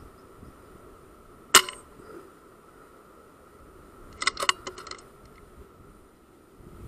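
A single shot from a sub-12 ft-lb FX Wildcat Mark III Compact .177 air rifle, a short, sharp crack about one and a half seconds in. About three seconds later comes a quick run of clicks.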